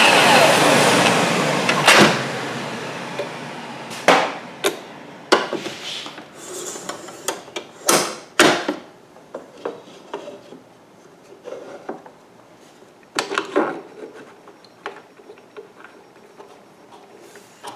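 Festool Kapex miter saw blade and motor winding down after a cut, falling in pitch and fading over about two seconds. This is followed by a string of sharp wooden knocks and clicks as a workpiece is taken off, a round rod is set on the plywood fixture, and the hold-down clamp is adjusted.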